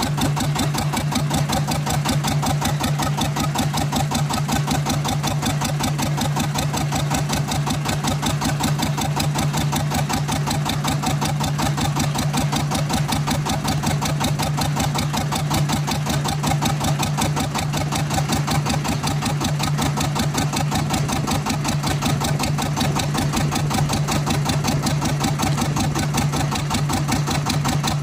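A small fishing boat's engine running steadily, with a fast, even chugging rhythm and a strong low hum.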